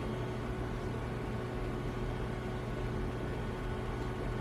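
Steady mechanical hum with a faint steady tone running through it; nothing else happens.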